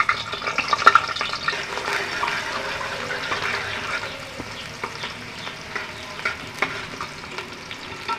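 Sliced onions sizzling steadily in hot mustard oil in a metal pot as they fry toward golden, with scrapes and clicks of a metal spatula stirring them against the pot, the stirring busiest in the first few seconds.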